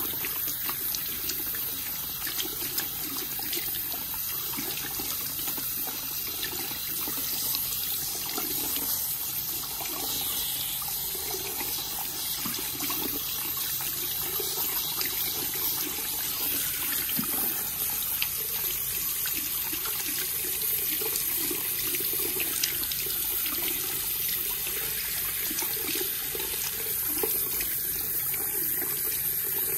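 Water spraying steadily from a salon shampoo-bowl shower head onto wet, lathered hair and splashing into the basin while the hair is rinsed. Fingers work through the wet hair under the spray, adding faint wet crackling.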